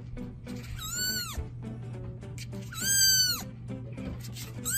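Young kitten meowing: three high-pitched meows about two seconds apart, each rising briefly and then falling away, the last one starting near the end.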